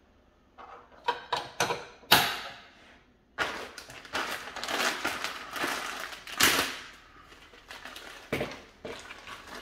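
Sharp plastic clicks and knocks, the sharpest about two seconds in, then a few seconds of rustling and rubbing and one more knock near the end, from a Hager KN26N neutral terminal bar being handled at a distribution board.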